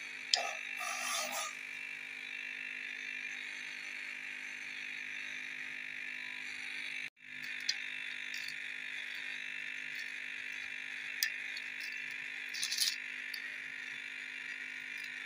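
Hands mixing marinated mutton pieces in a steel tray: a few short wet squelches and light taps against the metal over a steady high hiss.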